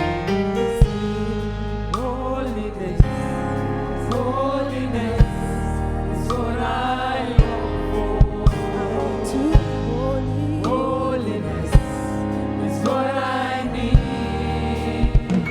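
Live gospel worship music: a singing voice gliding over held instrumental chords and a steady bass, with a sharp drum hit every second or two.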